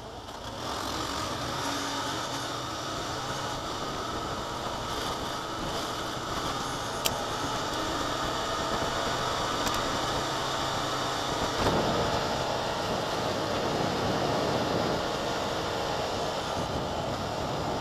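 Motorcycle riding on a dirt road, engine and wind noise played back sped up in fast motion, so it comes out as an even rushing noise with no clear engine note. A single sharp click sounds about seven seconds in.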